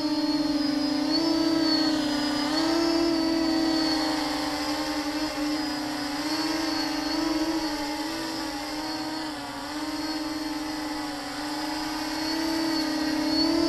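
Quadcopter on a QAV400 frame with a 4S battery, its electric motors and propellers buzzing steadily in flight. The pitch wavers up and down with the throttle changes.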